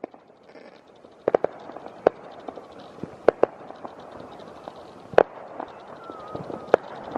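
Fireworks going off around the area: irregular sharp bangs and pops, some in quick pairs and triplets, over a steady hiss of more distant bursts. The biggest bang comes a little after halfway.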